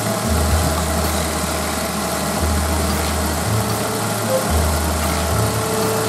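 Daihatsu Tanto's three-cylinder engine idling steadily, as it runs for an air-conditioning refrigerant charge.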